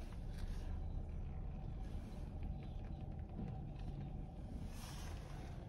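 Belanger Saber touch-free car wash running, heard muffled from inside the car's cabin as a steady low rumble, with a brief rise of water-spray hiss against the car about five seconds in.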